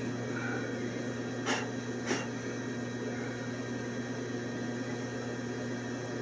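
Steady low machinery hum, with two light knocks about a second and a half and two seconds in as parts are handled.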